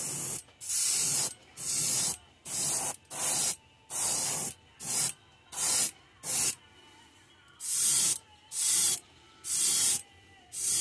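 Airbrush spraying pearl copper paint in short bursts of hiss, about one a second with a longer pause a little past the middle, as the trigger is worked on and off to lay a light coat on a lure.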